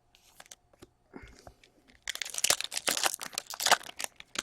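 Foil wrapper of a trading card pack crinkling and tearing, starting about halfway in after a few faint clicks.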